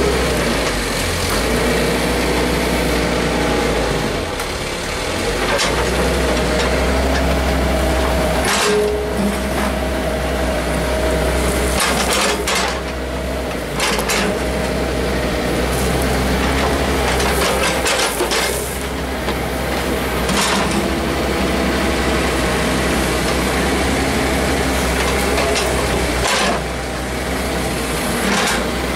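Daewoo Solar 50 wheeled excavator's diesel engine running steadily under load, its pitch shifting as the arm and bucket work the soil, with several sharp knocks of the bucket and linkage spread through.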